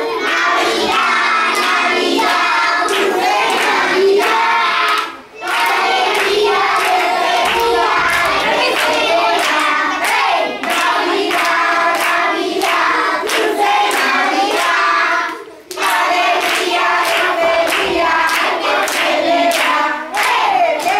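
A group of children singing a Christmas carol (villancico) together, with rhythmic hand clapping keeping the beat. The singing and clapping drop out briefly twice, about five seconds in and again a little past the middle.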